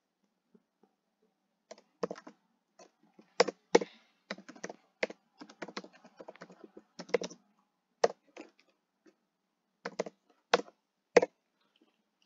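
Typing on a computer keyboard: irregular keystrokes with short pauses, some struck harder than others, starting about two seconds in and stopping about a second before the end.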